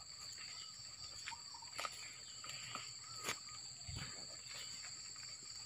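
Insects keeping up a steady, high-pitched drone on two constant tones, with a few soft footstep crunches on dry leaves and palm fronds.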